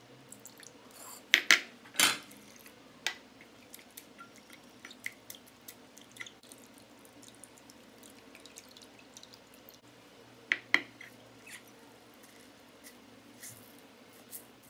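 Water dripping and trickling from washed grated potato as it drains out of a glass bowl into a dish, in scattered short drips. A few louder sharp sounds stand out, twice near the start and twice about two-thirds of the way through.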